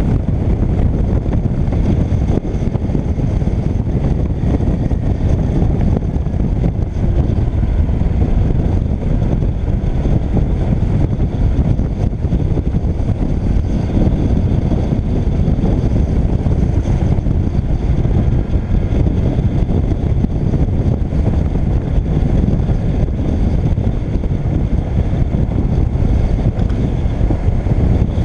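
Steady wind rush over the microphone of a motorcycle-mounted camera at riding speed, with the motorcycle's engine running steadily underneath.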